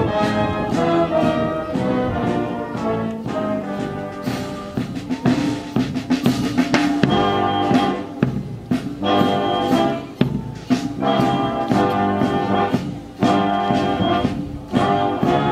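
Brass band music with drums: held brass chords over steady drum strikes, repeating in short phrases separated by brief breaks from about halfway through.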